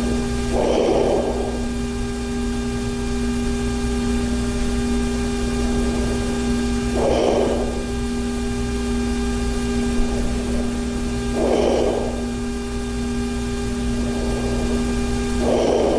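A person snoring in sleep: a rough, noisy breath about every four to six seconds, each lasting about a second, with fainter breaths in between, over a steady electrical hum.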